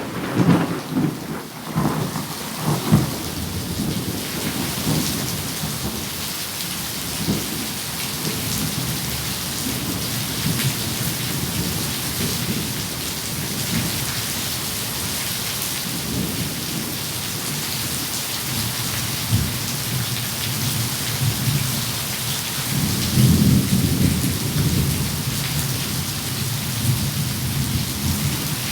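Steady heavy rain with thunder rumbling, the rumble strongest in the first few seconds and again with a swell of low rolling thunder about 23 seconds in.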